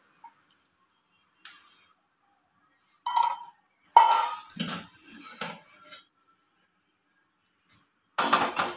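Kitchenware clinking and clattering in short bursts: steel and glass bowls and a strainer knocking together. The loudest clink is about four seconds in, and there are silent gaps between the bursts.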